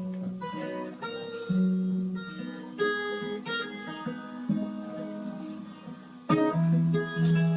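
Acoustic guitar playing the instrumental opening of a slow song, picked notes and chords ringing out over a held low bass note.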